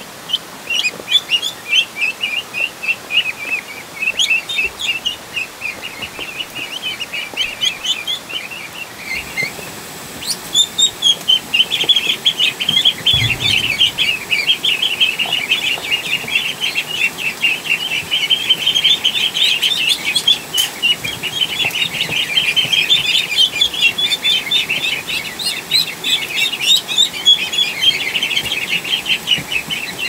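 A crowd of ducklings peeping in a dense, continuous chorus of short high chirps that eases briefly and then comes back louder. A short low thump about thirteen seconds in.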